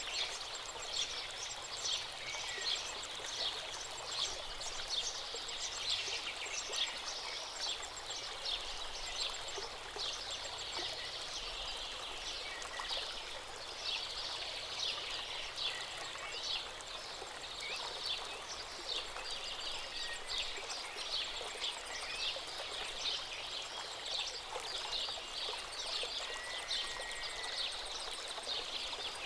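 River water flowing steadily, with faint bird chirps now and then.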